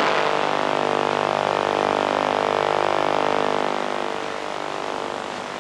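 Steady electrical buzz with hiss on a received amateur TV sound channel, many steady tones stacked together; it eases off about two thirds of the way through.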